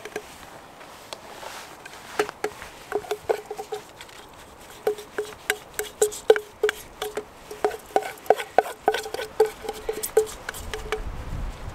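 Spoon knocking and scraping quinoa out of a metal Trangia saucepan: a quick, irregular run of sharp knocks, each with a short ringing tone from the pot.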